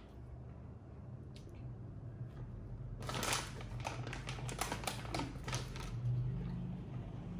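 Plastic candy wrapper being handled and crinkled: a quick run of sharp crackles lasting about three seconds, starting near the middle, over a faint low hum.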